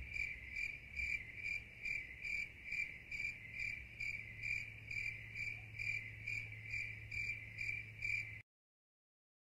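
Cricket chirping in a steady rhythm, about two chirps a second, over a low steady hum; it cuts off suddenly near the end.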